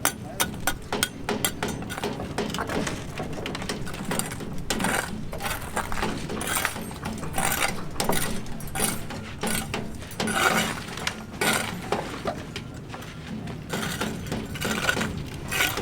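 Construction work with tools and building materials: a quick run of sharp metallic taps at the start, then irregular clinks, knocks and scrapes.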